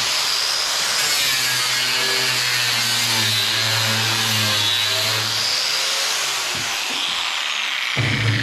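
Small angle grinder fitted with a nylon-bristle abrasive brush scuffing a truck tailgate to prep it for spray-on bedliner. It runs continuously with a high motor whine that wavers in pitch as the brush is worked over the surface.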